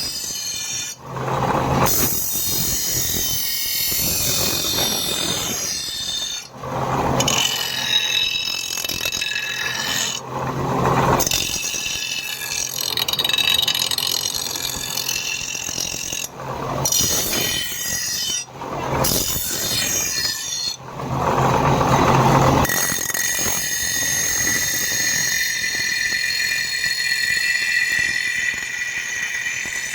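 Power grinder working on leaf-spring steel, a high squealing whine over a motor hum, interrupted by several brief breaks as the tool is lifted off and set back on the steel, then held steady in the last several seconds.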